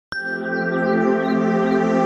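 Calm ambient intro music. It starts suddenly with a bright struck note, then holds sustained tones.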